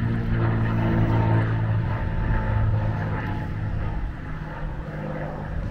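Cessna 182S Skylane's six-cylinder piston engine and propeller humming overhead, a steady low drone that weakens a little near the end as the plane moves away.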